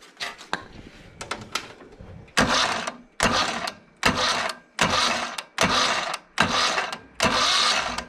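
John Deere 317 lawn tractor's electric starter cranking the engine in seven short bursts, each well under a second, coming about once every 0.8 seconds from a couple of seconds in. The starter had been sticking from gunk and now engages after being soaked with lubricant.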